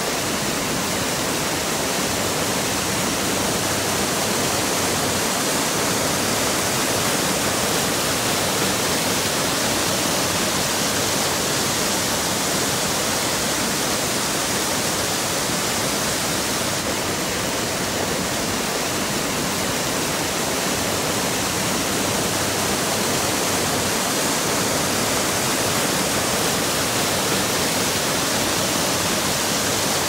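Small mountain waterfall cascading down a rock face: a steady rush of falling water.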